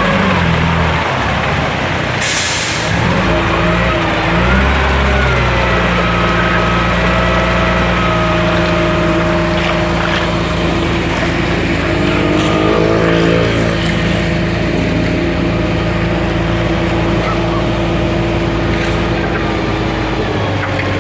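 Heavy diesel truck engine running, its pitch rising and falling a few times, with a short hiss of air about two seconds in, like an air brake releasing.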